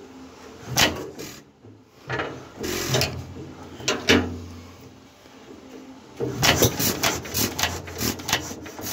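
Irregular metallic clacks and scrapes of a 1936 Stover CT-2 engine's linkage being worked by hand during a starting attempt, with a quick run of clicks about six seconds in. The engine, partially flooded, does not catch.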